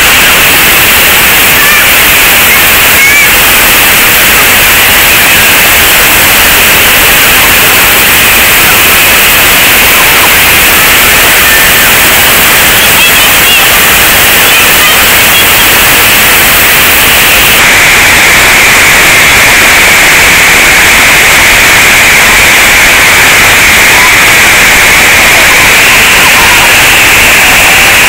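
Water pouring over a check dam: a loud, steady rushing with no break, its tone changing slightly about two-thirds of the way through.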